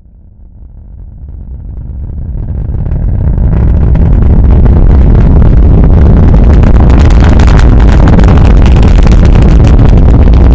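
Deep rocket-engine rumble with crackle, swelling from near silence over about four seconds to a loud, steady level.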